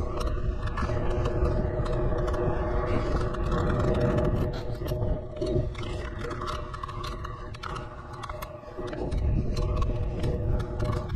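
A moving vehicle's motor running with a steady hum, with wind rumbling on the microphone.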